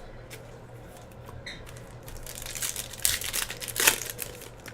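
Trading card pack wrapper being torn open and crinkled by hand, a crackling rustle that builds about halfway through and is loudest in the second half.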